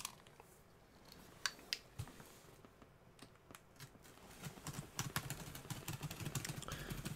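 A utility knife's blade slicing through packing tape along the seam of a cardboard box: a quiet run of quick crackling ticks from about four seconds in, after a few faint clicks.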